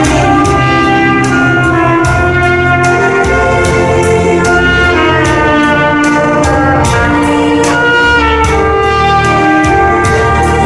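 Trumpet playing a slow, sustained ballad melody over a backing track with bass and a steady drum beat.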